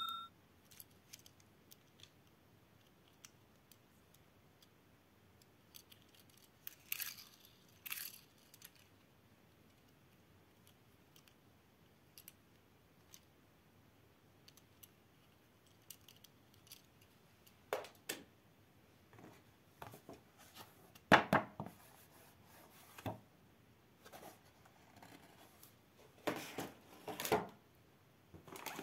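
A small toy car handled in the fingers: scattered faint clicks and scrapes, with a busier run of louder knocks and rustles in the second half.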